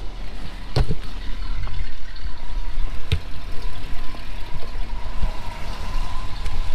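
Truck engine idling with a steady low rumble, a thin steady high whine coming in about a second and a half in, and a couple of short knocks.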